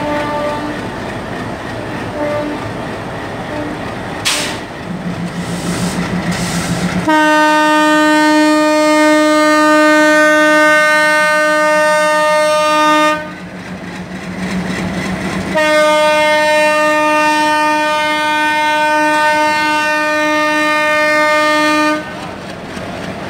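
WDM-3D diesel locomotive departing with its engine running, then sounding its horn loudly in two long blasts of about six seconds each, separated by a short gap of about two seconds.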